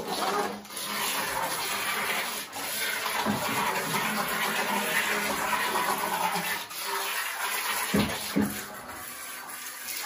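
Small twin-motor RC boat's propellers churning and splashing through bathtub water, a steady rushing sound that drops off about seven seconds in. Two short knocks follow near the end.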